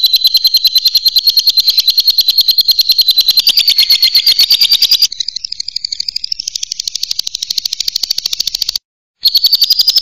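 Lovebird giving a long, rapid chattering trill (ngekek), a fast run of sharp high notes about a dozen a second. It gets softer about five seconds in, breaks off briefly near nine seconds and starts again.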